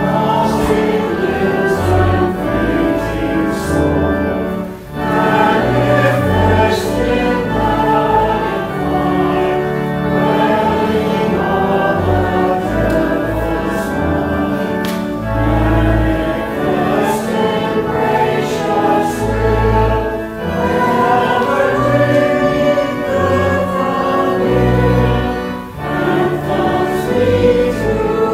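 A hymn sung by a congregation in unison, with instrumental accompaniment holding long bass notes under the changing melody.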